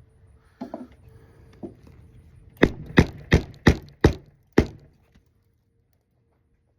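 Hammer driving roofing nails into a shingle: six sharp strikes about three a second, after a few lighter taps.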